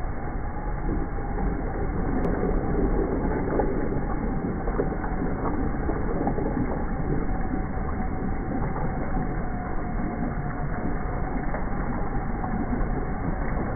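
One-piece rimless ceramic toilet flushing, its water swirling and draining through a bowl loaded with small plastic test balls that churn and knock together, with a steady thin whine underneath.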